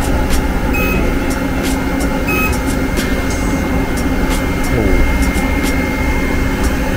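Steady machine hum with a faint high whine and light scattered ticks, from body-shop spot-welding equipment as its handheld gun's copper electrode is held against a car's quarter panel.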